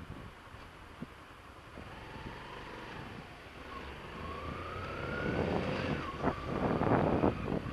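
Motorcycle engine idling quietly, then pulling away about four seconds in, its pitch rising as it accelerates. Wind noise on the helmet camera builds near the end as speed picks up.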